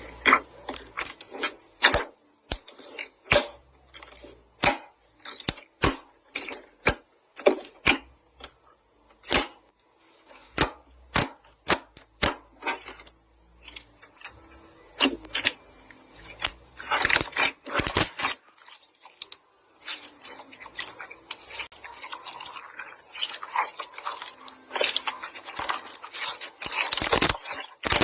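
Slime being squeezed and poked by hand, giving a run of sharp wet clicks and pops at an irregular pace, with denser crackling stretches about two-thirds of the way in and near the end.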